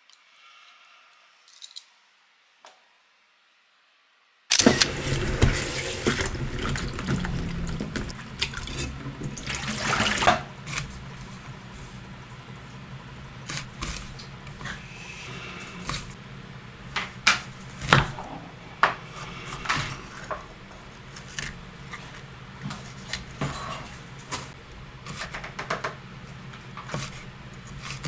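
About four seconds in, water starts running noisily for several seconds. Then a chef's knife strikes a wooden chopping board again and again in sharp, uneven taps while trimming green beans and slicing red bell pepper.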